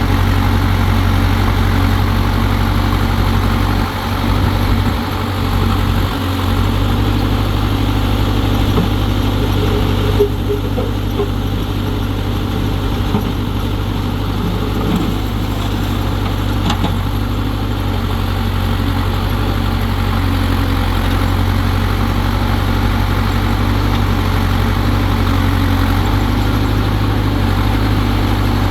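Massey Ferguson 750 backhoe loader's diesel engine idling steadily, with a brief unevenness a few seconds in.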